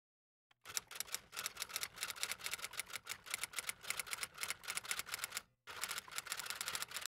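Typewriter sound effect: a rapid run of key clicks that starts about half a second in, breaks off briefly near five and a half seconds, then resumes. It goes with an on-screen caption being typed out.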